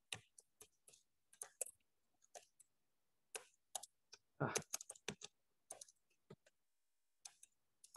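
Faint, irregular clicks, about a dozen, of a computer being operated while presentation slides are paged back and forth.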